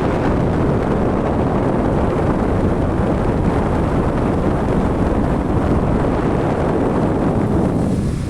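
Mondial Super Turbo VTX 40 cm eight-blade electric fan running, its airflow buffeting the microphone in a loud, steady rush of wind noise that drops off sharply at the very end.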